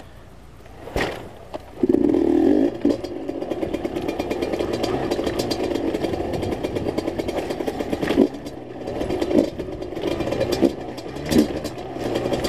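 Enduro dirt bike engine picking up with a loud burst about two seconds in, then running steadily under throttle as the bike rides over rocky ground. Several sharp knocks from the bike striking rocks come through over the engine.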